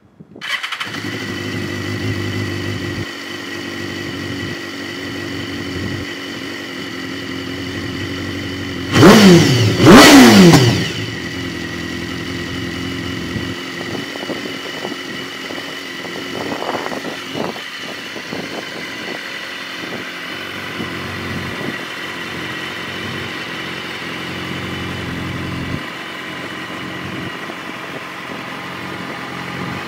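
BMW S1000RR's inline-four engine starting about half a second in and settling into a steady idle. Twice, a little after nine seconds, the throttle is blipped so the revs rise sharply and fall back, the loudest moments.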